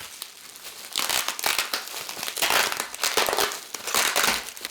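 Packaging wrap crinkling and rustling in several bursts as it is handled and pulled off a framed print, starting about a second in.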